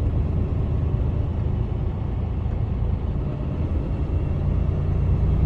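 Lorry diesel engine running steadily at a low road speed, with tyre and road rumble, heard inside the cab.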